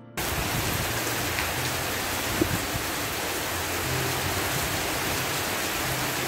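Steady hiss of heavy rain, cutting in abruptly just after the start.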